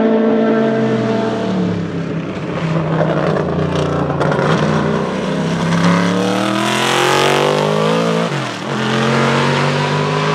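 Chevrolet Monza IMSA racer's 5.7-litre Chevrolet V8 at full race volume. The engine note falls as the car slows for the corner, climbs hard under acceleration, drops sharply at an upshift about two-thirds of the way through, then climbs again as the car pulls away past the fence.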